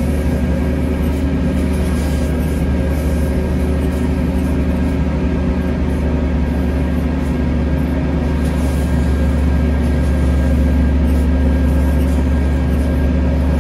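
Aircraft pushback tug's engine running steadily under load as it moves a Boeing 787-10 by its nose-gear towbar: a deep, even hum with a thin steady whine above it.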